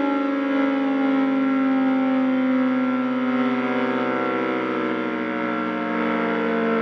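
L138 two-rotor electric siren sounding, its high-tone and low-tone rotors together giving a loud chord of tones that sinks slowly in pitch.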